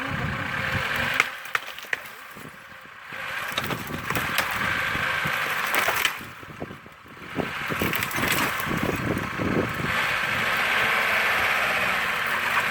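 Lada Niva working through a partly frozen stream crossing: the engine runs under load while ice and frozen ground crack and crunch under the wheels, with a couple of sharp cracks early on. The engine noise drops off briefly twice.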